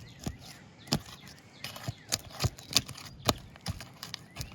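Irregular sharp clicks and cracks as a pry tool works under old asphalt shingles, breaking the sealant bond that holds them stuck down.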